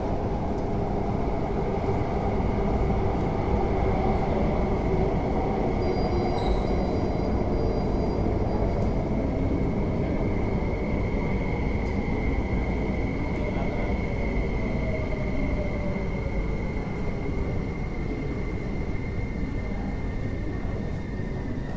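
MTR metro train pulling into an underground platform behind platform screen doors and slowing. A steady rumble of wheels and running gear runs under a high whine that drifts slowly lower as the train brakes.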